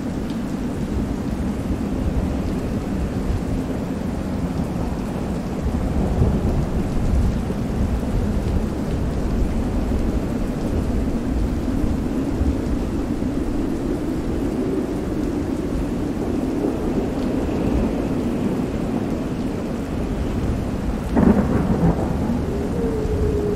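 Steady heavy rain with low thunder rumbling throughout, and a sharp thunder crack about 21 seconds in, the loudest moment.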